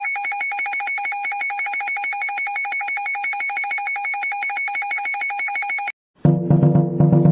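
Electronic emergency alert tone warbling rapidly for about six seconds, then cutting off suddenly. After a brief gap, a louder, lower buzzing tone starts near the end.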